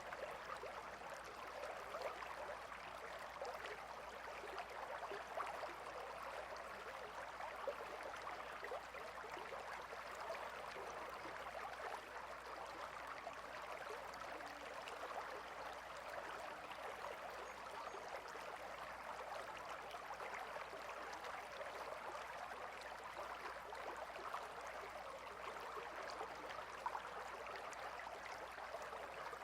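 A gentle river flowing: a steady, even babble of running water.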